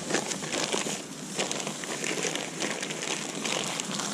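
Brown paper bag rustling and crinkling as hands rummage in it, in a quick run of irregular crackles.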